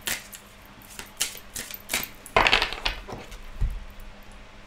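A deck of oracle cards being shuffled by hand, the cards flicking and slapping against each other in a run of quick clicks, with a louder burst of shuffling a little past halfway. Near the end there is a soft knock as the deck goes down on the tabletop.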